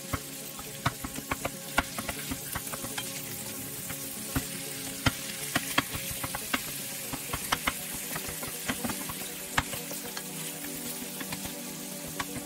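Pieces of salmon sizzling in hot oil in a skillet, with a steady frying hiss. A wooden spatula stirs and breaks up the fish, making irregular taps and scrapes against the pan.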